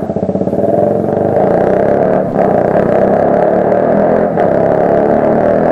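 KTM RC 125's single-cylinder four-stroke engine through an Akrapovic exhaust with the dB killer removed, pulling away and accelerating. It is too loud, dipping briefly twice.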